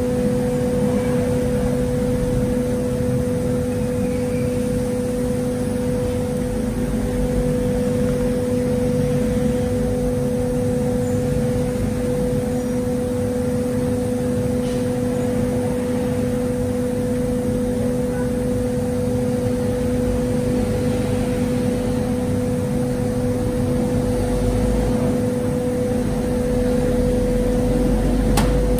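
Workshop machinery running steadily: a constant hum with a low, unchanging whine, and a single click near the end.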